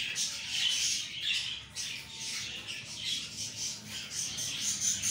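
Many small pet birds chattering and squawking together in a steady high-pitched twitter.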